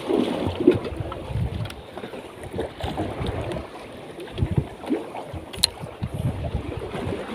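Wind buffeting the microphone over a small fishing boat at sea, with water against the hull in an uneven low rumble and a sharp click about five and a half seconds in.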